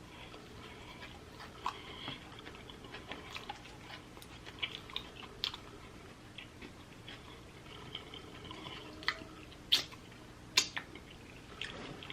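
A person chewing and biting food, with irregular short mouth clicks and smacks; two louder clicks come a little under a second apart near the end.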